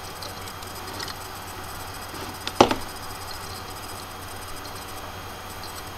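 Steady low background hiss and hum of the recording, with no speech. A single sharp click about two and a half seconds in, with a fainter one just before it.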